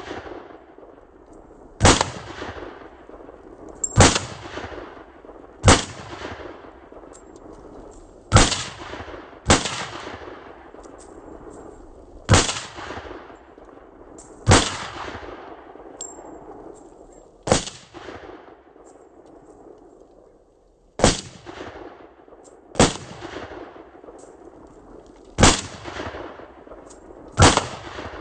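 5.56 rifle firing single shots, about a dozen spaced roughly two seconds apart, each shot trailing off in an echo.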